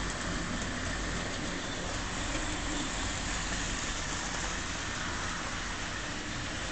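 Hornby model train running steadily round its loop of track, an even rushing noise with no distinct clicks.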